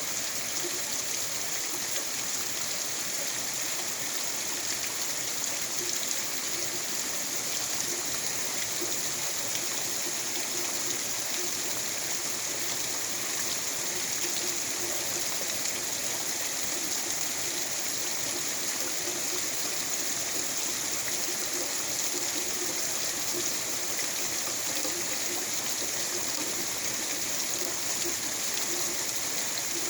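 Heavy rain falling steadily, a constant hiss of falling and running water with no breaks.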